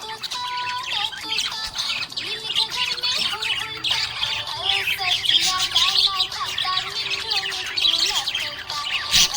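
Budgies chirping and chattering continuously in fast, high calls, over a simple background tune of steady held notes.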